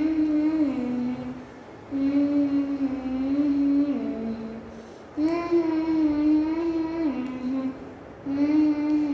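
A child singing wordless long held notes in phrases of two to three seconds, each phrase stepping down in pitch at its end, with short pauses between them.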